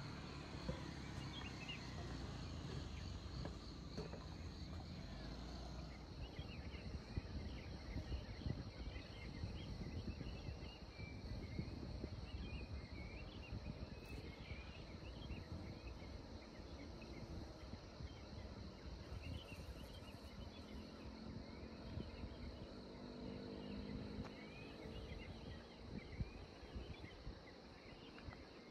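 Rural outdoor ambience: a steady high-pitched insect drone from crickets or cicadas, pulsing for the first few seconds, with many short bird chirps scattered throughout. A faint low hum joins about twenty seconds in.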